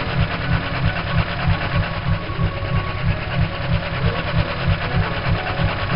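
Fast, steady, machine-like clattering rhythm, several even beats a second with a heavy low pulse on each beat.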